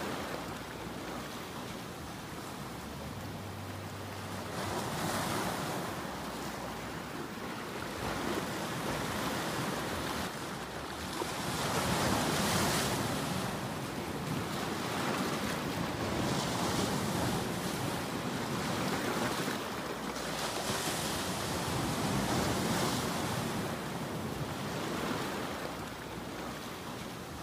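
Ocean surf breaking over a rocky shore: a steady rushing wash that swells and eases every few seconds, with the biggest surge about twelve seconds in.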